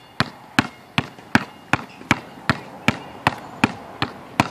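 A basketball dribbled hard and low on an outdoor hard court, a steady run of sharp bounces at about three a second.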